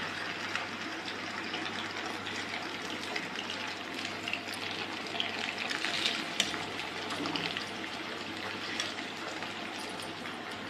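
Hot oil sizzling steadily in a kadhai as fried potato and cauliflower pieces are lifted out with a slotted metal spoon, with a few faint scrapes and clinks of the spoon against the pan.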